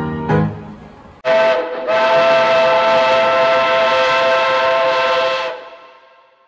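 The last piano notes ring out and die away, then a train whistle sounds one long, steady blast for about four seconds before fading out.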